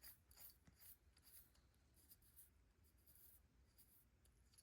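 Faint scrapes and light clicks of small metal carburetor parts and a screwdriver being handled on a bench, mostly in the first couple of seconds, then near silence.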